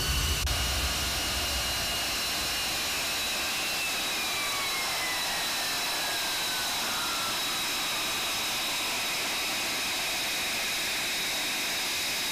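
Lockheed Martin F-35B Lightning II's Pratt & Whitney F135 jet engine running as the jet taxis: a steady rush with high whining tones, one of which slides down in pitch around the middle.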